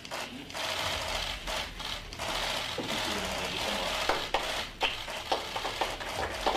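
Many camera shutters clicking in rapid bursts, a dense crackling clatter from press photographers during a handshake photo op.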